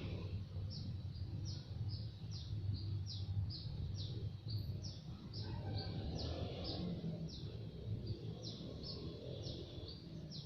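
A small bird chirping over and over in short, high notes that slide down in pitch, about three a second, over a steady low rumble.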